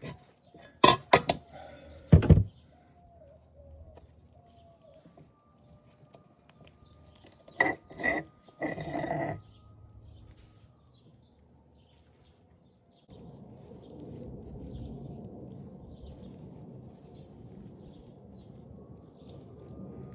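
Steel transmission parts clinking and knocking against each other as they are handled, in sharp strikes about a second and two seconds in and again around eight seconds. A steady low hum comes in about thirteen seconds in.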